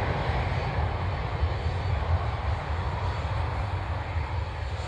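Aircraft engine noise from a departing military aircraft, a steady low rumble that slowly fades.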